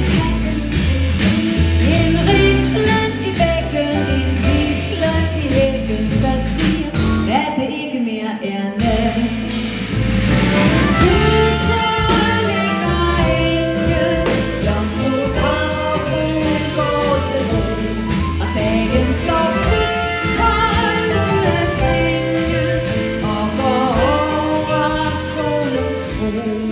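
Music: a woman singing a pop song with band accompaniment.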